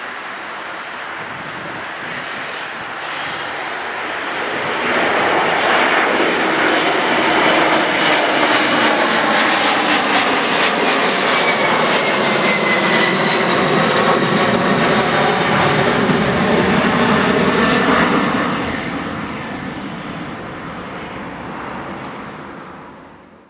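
Boeing 767-300ER's twin jet engines at takeoff power as the airliner climbs out overhead: the roar swells about five seconds in, stays loud with slowly falling tones as it passes, then fades away as it recedes, cutting off abruptly at the very end.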